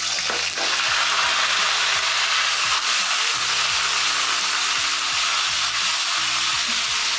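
Ginger-garlic paste sizzling loudly in hot oil in a metal kadhai, with a metal spatula stirring it through the oil. It is a steady, hissing fry that sets in as the paste hits the oil.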